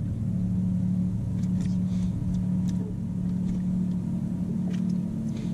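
Boat motor running steadily with an even low hum, with a few faint clicks over it.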